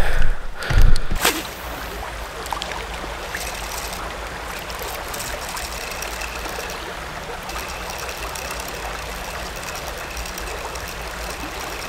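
Creek water running steadily, a constant even rush of flowing water, after a few low thumps and rustling in the first second or so.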